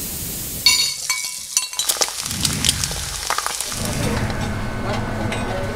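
Kitchen sounds at a griddle: a gas blowtorch hissing steadily, then a sudden ringing metal clink and a clatter of utensils, with a steady low kitchen din toward the end.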